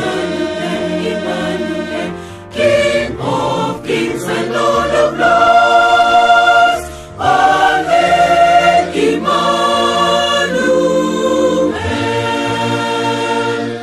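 Mixed choir of women's and men's voices singing a hymn in held chords, phrase by phrase, with brief breaks between phrases.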